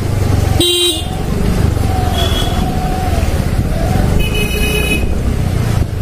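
Scooter riding along a street: steady engine and road noise with wind on the microphone, with two short horn beeps, one about half a second in and one about four seconds in.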